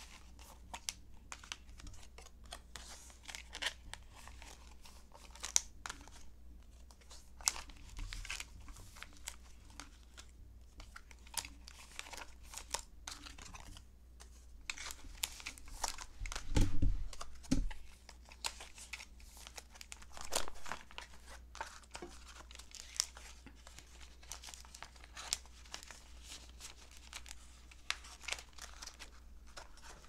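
Clear plastic business-card sleeves in a binder crinkling and rustling as cards are slid into their pockets, with many short clicks and taps throughout. A louder dull thump comes a little past halfway.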